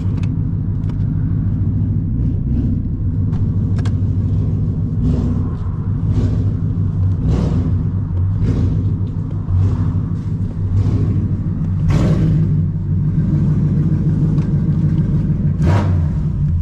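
Car engine running with a steady low rumble, stopping abruptly at the very end.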